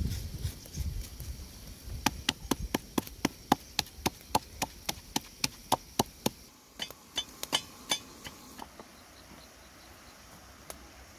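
Wooden pestle pounding salt in a mortar: a fast, even run of sharp knocks, about five a second, for some four seconds. Then comes a short burst of scattered sharper crackles from the wood fire.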